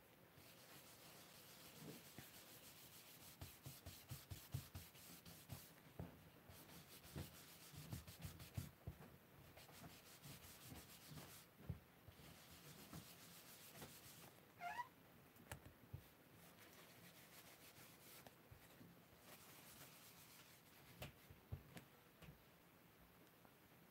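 Faint scrubbing of an ink blending brush worked back and forth over cardstock, with many soft taps and clicks. There is one brief rising squeak about halfway through.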